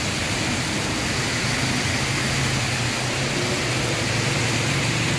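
Motorbike running steadily while riding, a low engine hum under an even hiss of wind and road noise.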